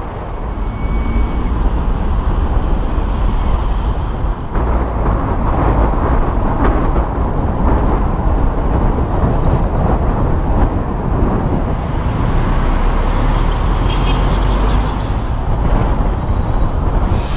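Wind buffeting a microphone held outside a moving minibus, over the steady rumble of the van's tyres and engine at speed. A brighter hiss joins in from about four seconds in and fades out again about halfway through.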